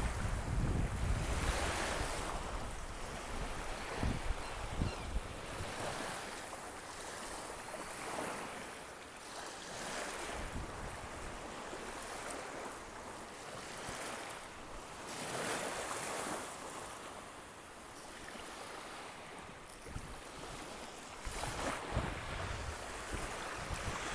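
Waves washing onto a beach, the surf swelling and fading every few seconds. Wind buffets the microphone at the start and again near the end.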